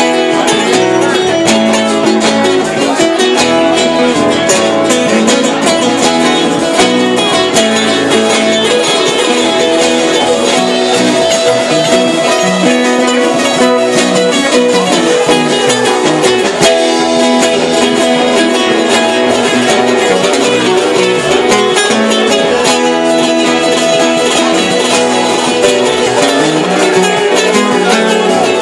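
Live band playing loudly: guitar over a drum kit, with a steady stream of drum hits.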